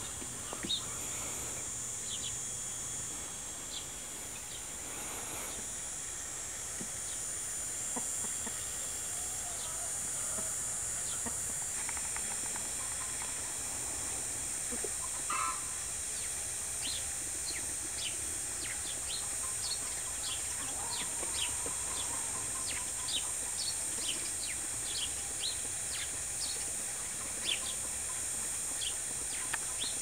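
Chickens clucking softly, with many short, high chirps, most of them in the second half. Underneath runs a steady, high-pitched insect drone.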